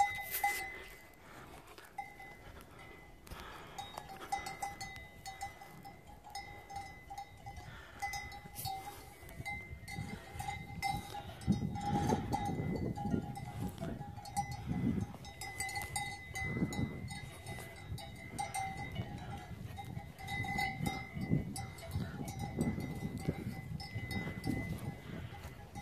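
Bells worn by grazing livestock ringing on and off as the animals move, with low thumps from about ten seconds in.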